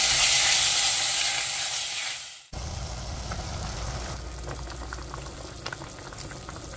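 Pieces of pork loin sizzling loudly as they fry in oil in a pot, fading out. After a cut about two and a half seconds in, pork kimchi stew bubbles at a boil, quieter, with many small pops.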